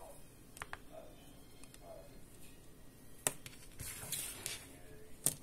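Handling noise of neckband Bluetooth earphones and their cables being moved over a phone: a few small clicks and taps, the sharpest about three seconds in and just before the end, with a short rustle around four seconds in.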